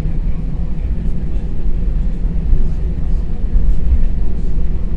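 Airbus A320 taxiing, heard from inside the cabin: a steady low rumble from the engines and the wheels rolling on the taxiway.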